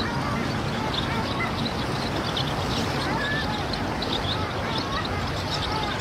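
A flock of long-tailed ducks calling, many short up-and-down calls overlapping one another without pause, over a steady low rushing noise.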